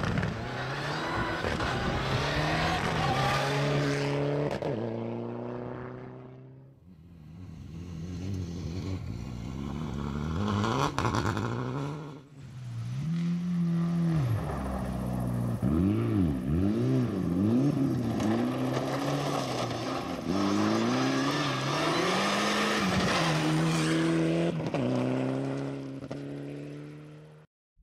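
Rally cars at full throttle on a gravel special stage, passing one after another: engines revving hard and dropping with each gear change and lift-off, the pitch swinging up and down rapidly in the middle stretch.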